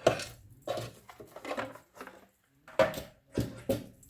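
Paper and a scoring tool being worked on a scoring board: a series of short knocks and scrapes, about half a dozen, with brief pauses between them.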